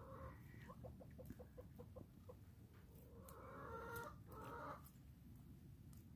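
A bird calling softly: a quick run of about eight short notes, then two longer calls a little past halfway through.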